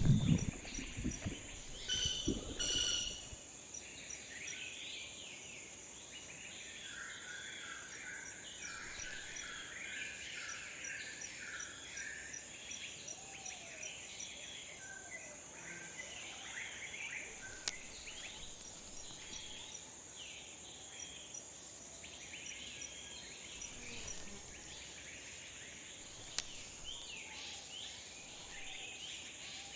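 Forest nature ambience: many birds chirping and calling over a steady high insect drone. A louder low rumble dies away over the first few seconds, and there are two sharp clicks later on.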